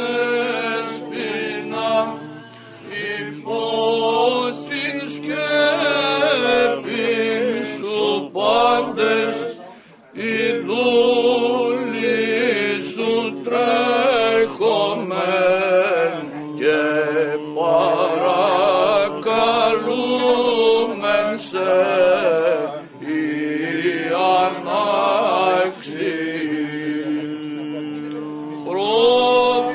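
Greek Orthodox Byzantine chant: voices singing a slow, ornamented melody over a steady held drone note, with a brief pause about ten seconds in.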